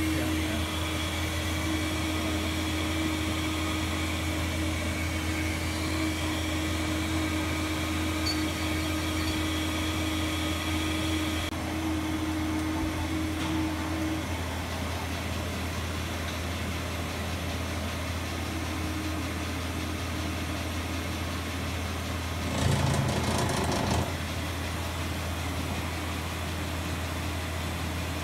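Steady low hum of a powered-up Mazak Integrex 200-II SY CNC lathe, with faint whining tones that stop near the middle. A brief louder rush of noise lasting about a second and a half comes about four-fifths of the way in.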